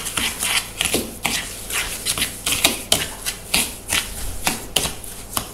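A metal spoon beating eggs and sugar in a plastic bowl, clicking and scraping against the bowl about three times a second.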